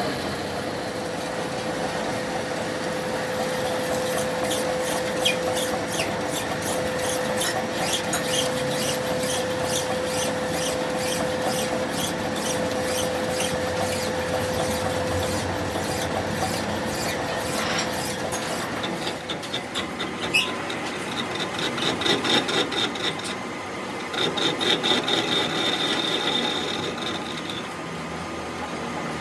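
A power tool running in a metalworking workshop, with a steady whine under rapid, evenly repeating ticks; the pattern changes about twenty seconds in.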